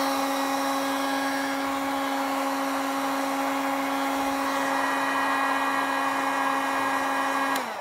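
Electric heat gun running steadily, its fan whirring with a constant hum, as it shrinks a heat-shrink sleeve over a crimped lug on a battery cable. It is switched off near the end and the hum falls away as the fan winds down.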